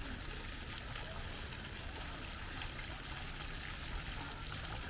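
Small fountain jets splashing and trickling into a long shallow pool, a steady sound of running water with a low rumble underneath.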